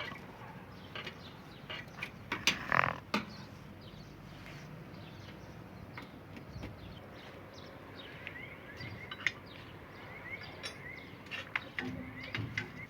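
Scattered small clicks and taps of hand work on the air conditioner's wiring terminals as the electrical connections are made. A quick series of short bird chirps comes in the second half.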